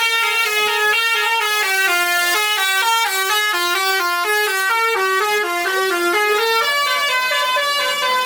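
Indonesian bus 'telolet' musical air horn playing a quick tune, its notes stepping up and down about four a second.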